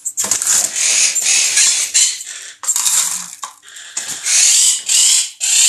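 Dry parrot food rattling and pouring into feeding bowls, in a string of loud, gritty bursts.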